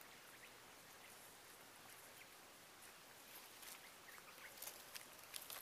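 Near silence: a faint steady hiss, with a few faint ticks and brief faint chirps in the second half.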